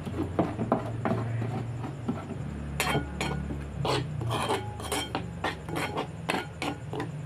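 A wooden pestle pounding chutney paste in a metal mortar bowl, then, from about three seconds in, a steel spoon stirring the paste and scraping and clinking against the metal bowl in quick, repeated strokes.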